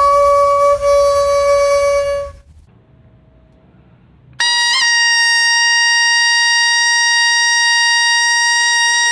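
A daegeum (Korean bamboo transverse flute) holds a long note that dies away after about two seconds. After a short pause, a taepyeongso (Korean double-reed shawm) cuts in sharply with a loud, bright note that bends briefly at its start and then holds steady.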